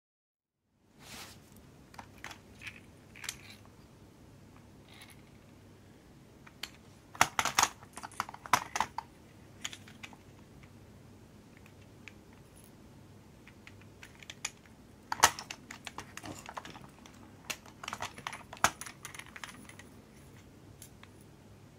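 Small watchmaking tools clicking and tapping on a watch movement: scattered sharp little clicks that come in clusters, the busiest about seven to nine seconds in and again from about fifteen to twenty seconds in.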